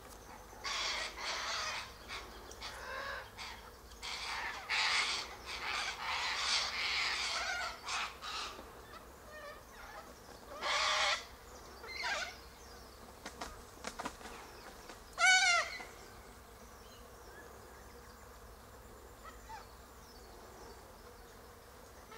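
Sulphur-crested cockatoos screeching: a run of short, rasping calls over the first eight seconds, two more at about eleven and twelve seconds, and one clearer call about fifteen seconds in that rises and falls in pitch.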